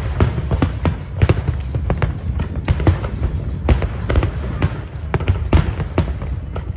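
Aerial fireworks shells bursting in quick succession: sharp bangs, several a second, over a constant low rumble.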